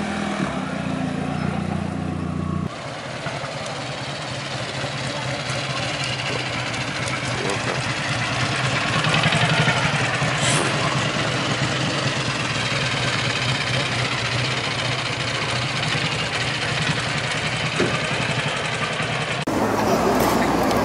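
Old single-cylinder-style motorcycle engine running in a quick, even firing rhythm as the bike rides slowly past, growing louder as it comes nearest about halfway through. A shorter, steady engine hum is heard briefly at the start.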